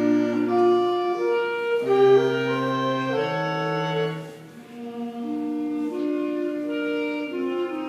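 Middle-school wind band playing live: clarinets and other winds hold sustained chords that change every second or so, with a brief quieter moment about halfway through before the band comes back in.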